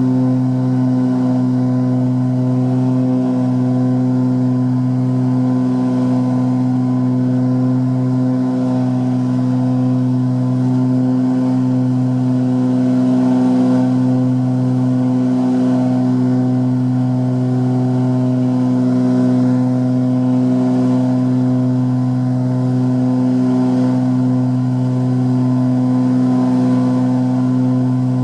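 Cabin drone of the Aero Commander 500S Shrike Commander's twin piston engines and propellers at climb power, steady and loud. It swells in a slow beat every two to three seconds, typical of two propellers turning slightly out of sync.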